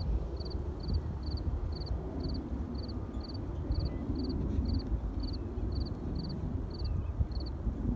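Low, steady rumble of a distant jet airliner climbing out after take-off, mixed with wind on the microphone. Through it a cricket chirps steadily, about two high, pulsed chirps a second.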